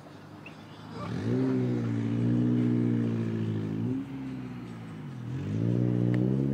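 A motor vehicle's engine revving up and then running at a steady pitch. About four seconds in it drops in pitch, then climbs again near the end as it accelerates.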